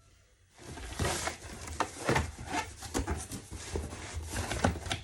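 Cardboard shipping box and its packaging being opened and handled: rustling and scraping with many quick clicks and knocks, starting about half a second in.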